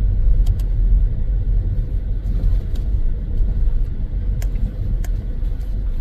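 Car driving on an unpaved dirt road, heard from inside the closed cabin: a steady low rumble from the tyres and running gear, with scattered light clicks and knocks.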